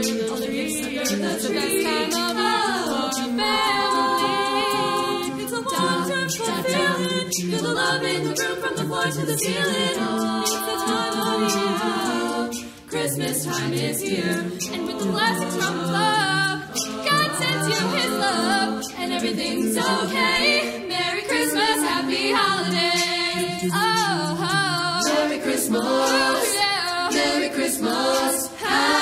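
Small mixed group of teenage boys and girls singing a cappella, without instruments.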